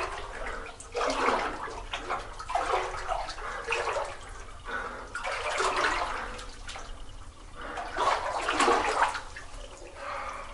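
Footsteps wading through standing water in a flooded mine tunnel, a splashing slosh with each stride, about one a second.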